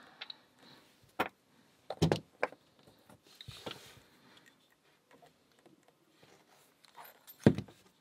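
Sharp metal clicks and knocks from a steel padlock being handled as its removable cylinder core is worked out of the body, with a brief scrape in the middle and a louder knock near the end.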